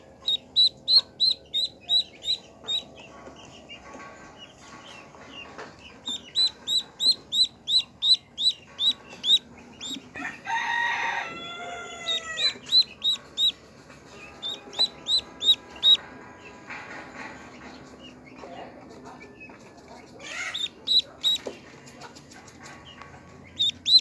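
Newborn duckling peeping: short high peeps, about three a second, in runs with pauses between them. About ten seconds in, a lower, longer sound with falling pitch comes in for a couple of seconds.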